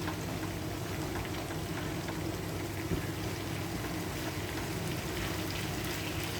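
Marinated chicken pieces sizzling and crackling steadily as they fry in hot coconut oil in a pan, with a light knock about three seconds in.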